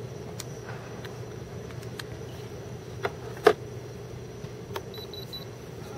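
A steady low hum with a few sharp handling clicks and knocks, the loudest about three and a half seconds in. Near the end come three short, high electronic beeps.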